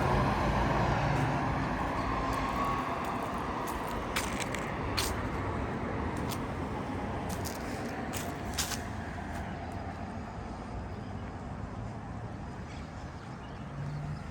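Road traffic on a city avenue: a passing vehicle's noise fades steadily away, leaving a quieter traffic hum, with a few sharp clicks about halfway through.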